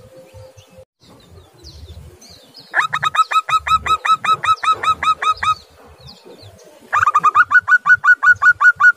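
Zebra dove (perkutut) calling: two runs of quick, evenly repeated rising notes, about eight a second. The first starts about three seconds in and lasts under three seconds; the second starts near the seventh second and carries on to the end.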